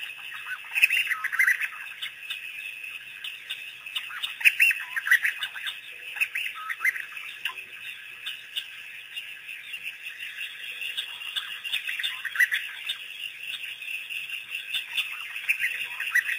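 African wild dogs twittering: bursts of high-pitched, bird-like chirps, loudest about a second in, around four to five seconds in and near the end.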